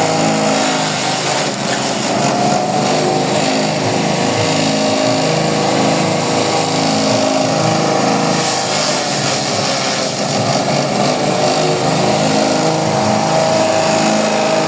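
Small petrol engine of a three-blade forage chopper running steadily at working speed and driving the blades as corn stalks are fed through, with a slight dip and rise in pitch about two seconds in.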